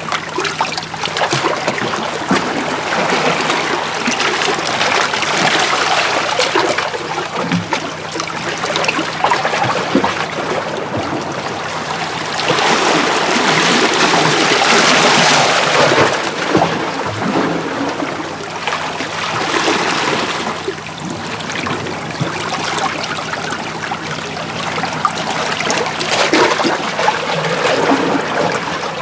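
Small sea waves washing in and out over shoreline rocks, with water trickling and gurgling between the stones. The wash rises and falls in several surges, the biggest about halfway through.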